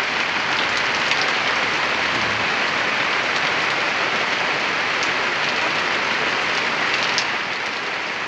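Steady rain falling on surfaces, an even hiss with a few faint drop ticks.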